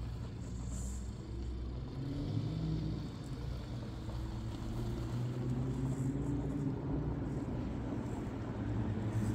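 Electric motor and gearbox of a radio-controlled scale crawler pickup whining as it creeps over rock, the pitch rising and falling with the throttle.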